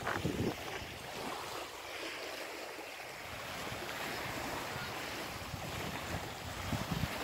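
Small waves washing onto a pebble beach, a steady hiss, with wind buffeting the microphone near the end.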